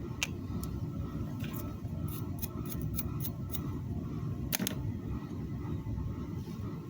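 Light, sharp clicks and taps from small hand tools handling wire leads at a workbench. There is a quick run of them in the middle and a louder double click just past halfway, over a steady low hum.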